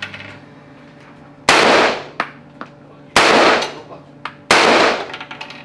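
Three pistol shots about a second and a half apart, each a sharp bang with a short ringing tail, with a few faint clicks in between.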